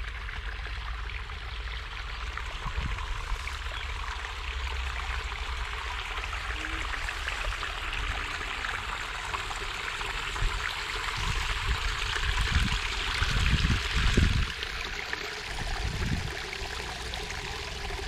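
Water running along a concrete irrigation channel, a steady rushing and trickling sound. In the second half, low irregular rumbles come and go over it.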